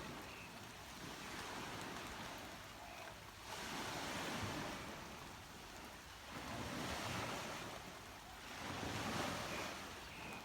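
Small sea waves breaking and washing up a beach. Three surges come in, each about two seconds long, over a steady wash of noise.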